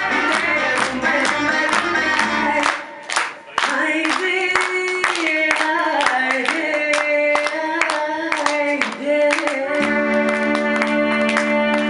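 Dance music with a steady percussion beat and singing. The low bass drops out about a quarter of the way in and comes back near the end.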